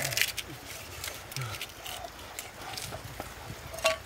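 Low, short grunts from a person making animal-like noises, twice, over rustling and small clicks of things being handled on the ground.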